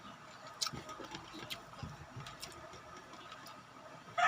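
Faint scattered clicks and smacks of eating, about one a second. A rooster starts crowing right at the end.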